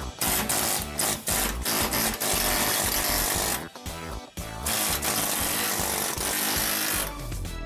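Pneumatic air chisel hammering through the rusted sheet-steel hood-seal lip of a 1972 VW Super Beetle body. It runs in bursts, with a short break about halfway through.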